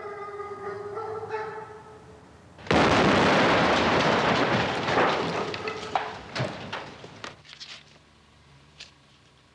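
A steady held tone, then about three seconds in a sudden loud explosion: a caravan's gas heater blowing up, its rumble fading over several seconds with a few sharp cracks.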